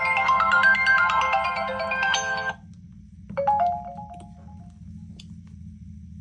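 Smartphone ringtone melody of quick bright notes, cutting off about two and a half seconds in. About a second later comes a short chime of a few notes, then a few faint clicks.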